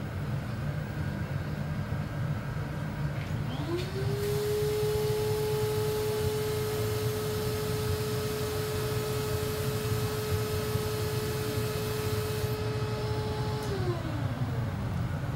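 An electric motor spins up with a rising whine about four seconds in, runs steadily with a rush of air, and winds down near the end. Beneath it runs the steady roar of the glass shop's gas-fired glory hole.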